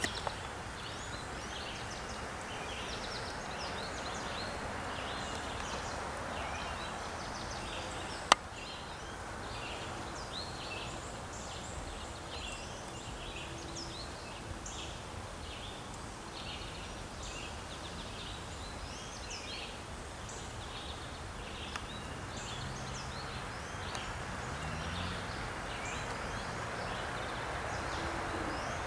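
Many birds chirping in short, irregular calls over a steady outdoor background hiss, with one sharp click about eight seconds in.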